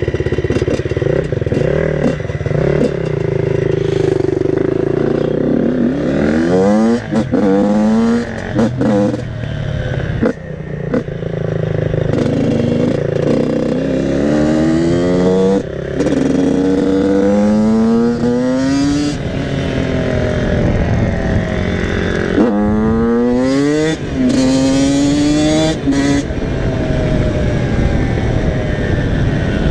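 Yamaha YZ85 two-stroke motocross engine ridden hard, accelerating through the gears in four bouts: each time the pitch climbs, drops at an upshift and climbs again, with steadier running in between.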